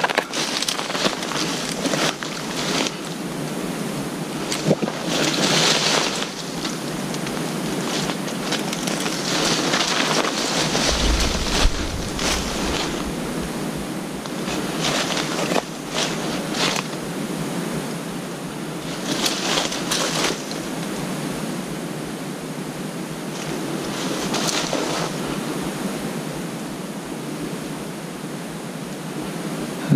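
Rustling and swishing of dry brush and dead leaves as someone pushes on foot through thick undergrowth, swelling every few seconds. There is a brief low rumble of wind on the microphone about eleven seconds in.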